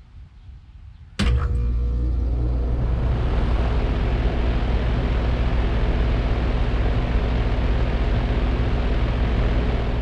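A 2009 Trane XR15 4-ton heat pump's outdoor unit starting up: about a second in the compressor kicks on suddenly with a steady low hum, and the condenser fan spins up over the next couple of seconds, then the unit runs steadily.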